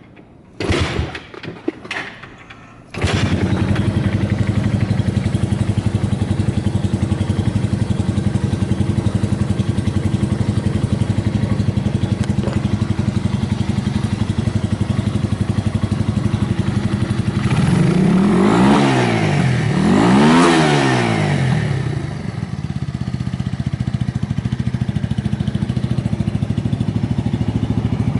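Yamaha TW200's single-cylinder four-stroke engine, with an aftermarket Supertrapp megaphone exhaust, starting about three seconds in after a few short bursts, then idling steadily. It is revved twice, pitch rising and falling, about two-thirds of the way through, then settles back to idle, running without abnormal noise.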